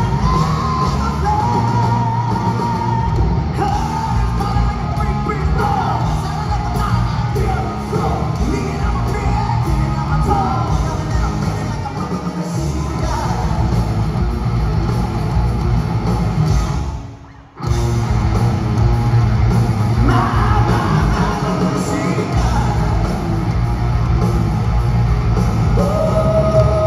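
Hard rock band playing live through a PA: distorted electric guitars, bass and drums, with a singer singing and yelling over them. About two-thirds of the way through, the band stops dead for about half a second, then comes straight back in.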